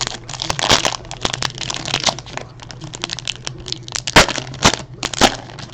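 A pack of 2017 Panini Optic football cards being torn open by hand: the wrapper crinkles and crackles as it is pulled apart, with three sharper, louder cracks about four to five seconds in.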